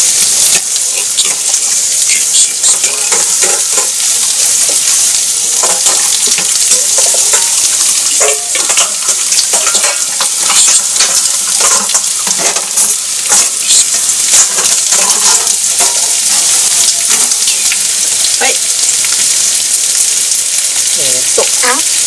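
Pieces of chicken thigh frying in oil in a frying pan: a steady sizzle with many small crackles and pops.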